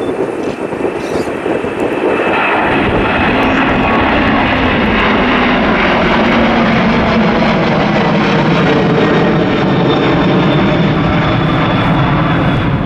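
Twin GE CF6-80C2B6 turbofans of a Boeing 767-300 freighter at takeoff thrust, climbing out just after liftoff. The jet noise swells about two seconds in and then stays loud and steady, with a low tone sliding slowly down in pitch as the aircraft passes.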